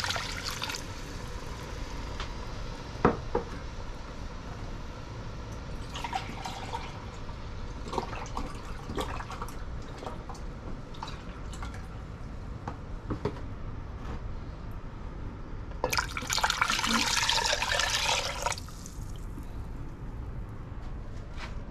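Chicken broth poured into a hot enamelled cast-iron Dutch oven over sautéed onions, splashing at the start and again in a louder stretch of about two seconds near the end. Between the pours there is a low hiss from the pot and a few light clicks.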